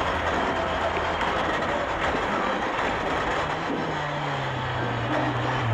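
Toyota Corolla AE86 rally car's twin-cam four-cylinder engine running hard, heard from inside the stripped cabin along with rattling road and tyre noise. The engine note drops over the last couple of seconds as the car slows.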